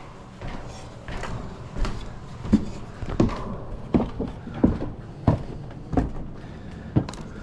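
Heavy steps and knocks, about one every two-thirds of a second, of a man climbing up into an attic.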